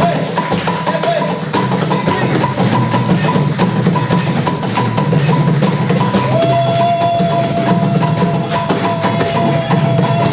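Percussion-led music with a steady beat of quick strikes and drums. A long held note comes in about six seconds in.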